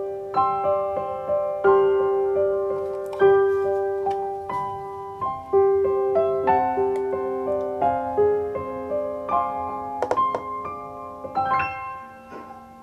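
Background piano music: a slow, gentle melody of single struck notes, each dying away, that fades out near the end.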